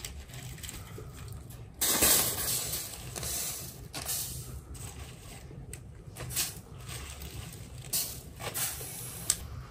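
Crisp lettuce leaves rustling and crinkling as they are handled and laid over rice in an aluminium pot. The loudest rustle comes about two seconds in, followed by several shorter ones and a sharp tick near the end, over a low steady hum.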